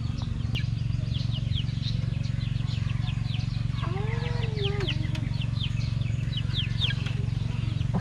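Small birds chirping over and over, with short quick downward chirps, above a steady low hum. About four seconds in, a single drawn-out lower call rises and falls.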